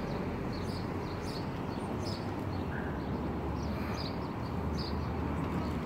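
Open-air street market ambience: a steady low rumble with short high chirps of small birds scattered through it.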